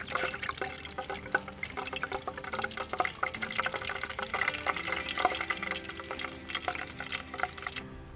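Hot oil crackling and spitting in a wide frying pan over a wood fire, a dense run of rapid pops, cutting off shortly before the end.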